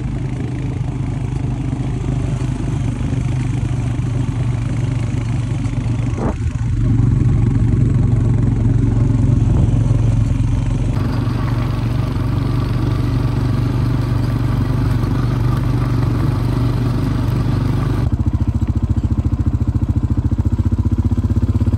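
Honda four-wheeler (ATV) engine running as it is ridden over a rough dirt pasture track. Near the end the sound changes to an even, rapid pulse.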